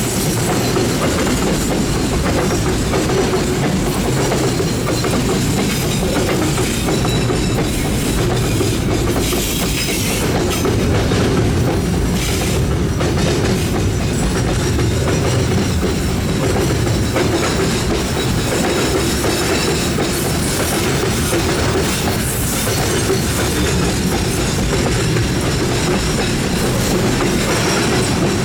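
A long train's cars rolling past close by, wheels clicking over the rail joints in a steady, continuous rumble.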